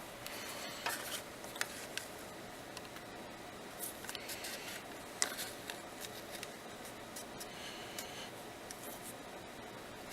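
Faint scratching and light taps of a marker on a cardboard template while the bolt location is marked, with the cardboard rubbed and handled.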